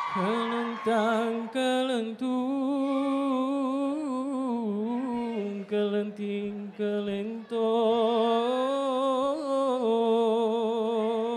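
A single voice singing unaccompanied, a slow ornamented melody of long held notes with a wavering vibrato and a few short breaths between phrases: the solo singing that opens a dikir barat performance.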